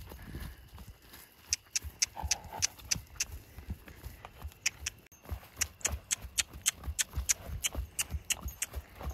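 A horse's hoofbeats on grass as it moves briskly around on the lunge: a steady rhythm of dull thuds with sharp clicks, about three or four a second, with a brief break about halfway.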